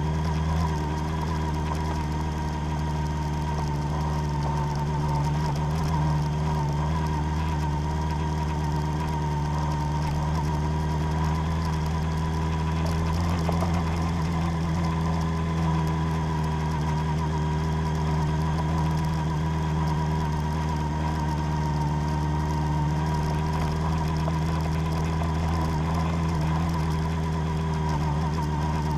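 Vehicle engine running steadily at low, even revs, with a steady higher whine above it.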